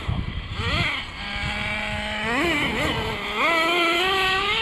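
Electric motor and drivetrain of a Traxxas Slash RC truck whining, its pitch rising and falling with the throttle: held steady for about a second, swooping up, then climbing slowly near the end.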